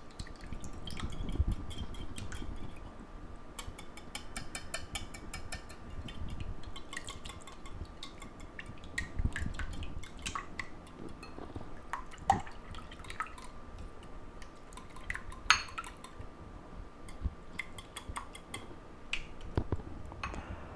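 Raw eggs with seasonings being beaten in a bowl: a long run of quick, light clicks and taps of the utensil against the bowl, with wet liquid sounds. A faint steady hum runs underneath.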